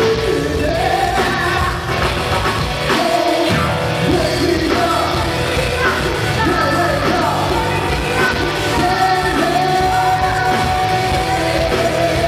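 A woman singing into a microphone with a live band of electric guitars and drums, holding several long notes in the middle and later part.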